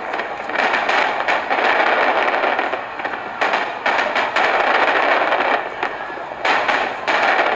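Fireworks crackling: a dense rush of rapid small pops that swells and eases in several waves.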